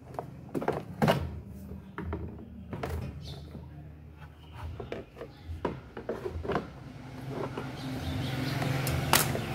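Scattered clicks and knocks of hand tools and metal and plastic parts being handled while an air fryer is taken apart. Under them runs a low engine hum that grows louder near the end.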